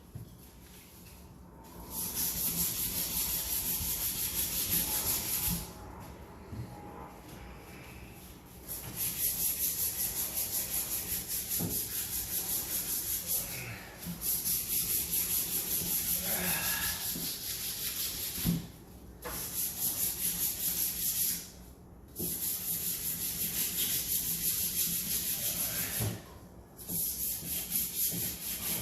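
Rapid abrasive scrubbing on plumbing pipe in fast strokes, like cleaning a cut pipe end for a new fitting. It comes in about six bursts of a few seconds each with short pauses between, and a few light knocks of pipe or tools.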